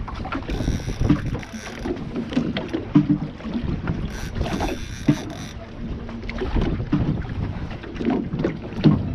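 Wind buffeting the microphone and water slapping against the hull of a small fishing boat, with scattered irregular knocks.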